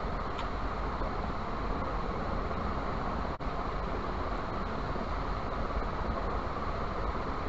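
Steady rushing background noise with no distinct events, dropping out for a moment about three and a half seconds in.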